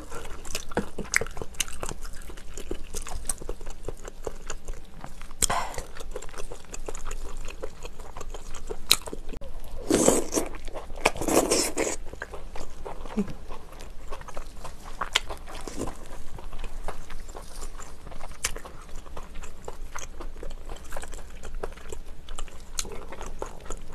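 Close-miked eating of shellfish meat from a spicy clam stew: wet chewing and biting with many small mouth clicks. Two louder sucking slurps come about ten and eleven and a half seconds in.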